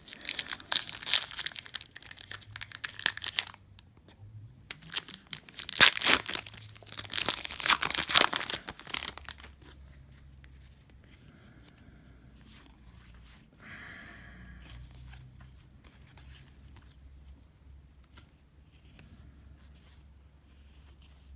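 Plastic trading-card pack wrapper torn open and crinkled in two loud spells, the second about six seconds in, followed by only faint handling sounds.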